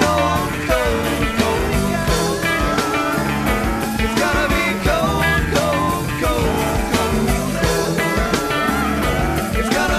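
Background rock music with a steady drum beat, bass line and guitar.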